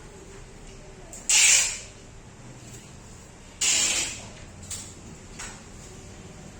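Ogata CF-101 industrial ceiling fan running with a steady background hum, broken twice by short, loud hissing bursts about two seconds apart.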